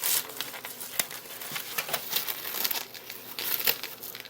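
Plastic cling wrap being pulled and crumpled off a plate by hand: irregular crinkling and crackling with a few sharper snaps.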